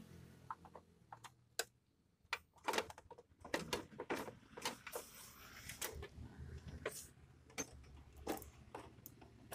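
Irregular small clicks and knocks as a screwdriver works at screws and handles the plastic internal covers of a Canon imageRUNNER 5075 photocopier.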